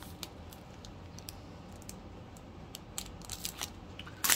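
Plastic packaging of a clear stamp set being handled: scattered light clicks and ticks, with a sharp louder click near the end as the package is set down on a wooden floor.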